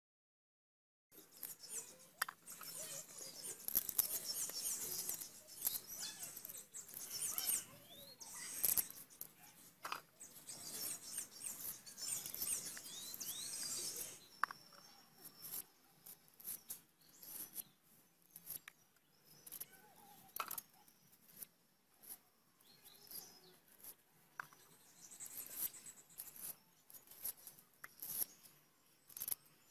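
Knife work on moringa drumstick pods: a string of small clicks, scrapes and snaps as the fibrous strings are peeled off and the pods are cut into pieces. The first half is louder and busier, with birds chirping in the background. Later the clicks come singly, about once a second.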